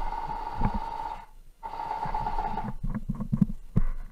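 A person breathing close to the microphone: two long breaths, each about a second and a half, with a slight whistle in them, and light knocks from the rifle being handled.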